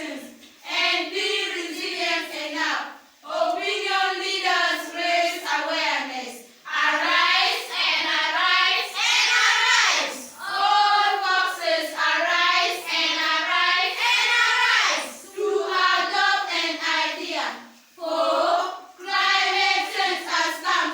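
A group of children's voices singing in unison, phrase after phrase with short pauses between.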